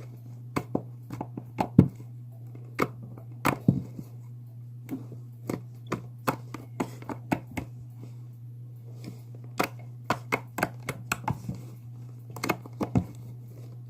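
Jiggly body-wash-and-glue slime being squished and stretched by hand, making many irregular sharp clicks and pops over a steady low hum.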